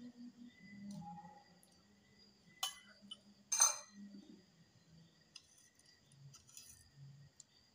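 Eating at the table: small clicks and two sharp clinks of dishware, the second louder, about two and a half and three and a half seconds in.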